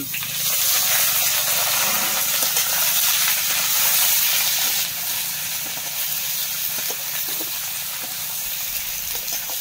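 Eggplant pieces frying in hot oil in an iron kadhai: a loud, steady sizzle from the moment they hit the oil, with a few light scrapes and taps of a steel spatula as they are stirred.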